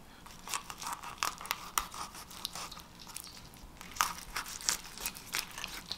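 Knife blade sliding between a crappie's flesh and skin on a cutting board: a quiet run of small irregular scrapes, crackles and tearing sounds, the loudest about four seconds in.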